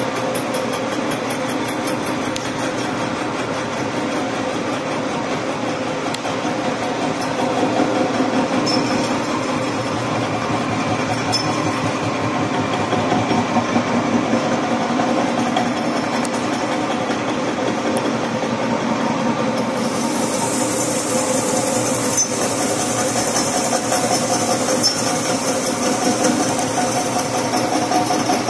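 Horizontal boring mill's single-point boring bar cutting steel in a weld-repaired pin bore, a steady machining noise with a fast, even rattle. It is the first pass after touch-up welding, with the cutter hitting hard, chilled weld spatter, which is hard on the cutter. About two-thirds of the way through, a higher hiss joins in.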